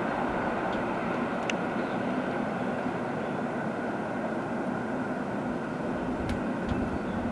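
A train running past: a steady rumble with a couple of sharp clicks, one about a second and a half in and another near the end.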